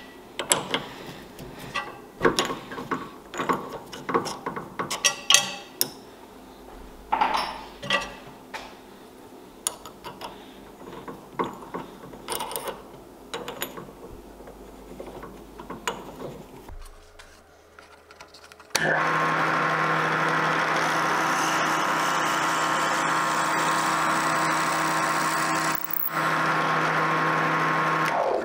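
Metal clicks and clinks of a chuck key and drill bit being worked in a drill press's keyed chuck as the bit is changed. Then, from about two-thirds of the way in, the drill press motor switches on and runs steadily while the bit drills into a wooden block, dipping once briefly near the end.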